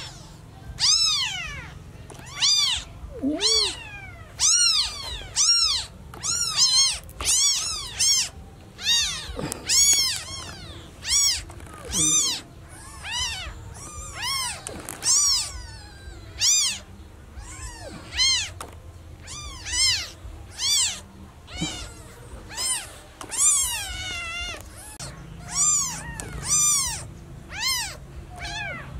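Newborn kittens meowing over and over: thin, high cries that rise and fall in pitch, a little more than one a second, with calls sometimes overlapping. Typical distress calls of newborn kittens crying for their mother.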